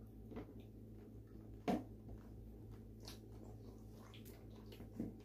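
Quiet room with a steady low hum and a few faint clicks and light knocks from eating at a table, the clearest about a second and a half in.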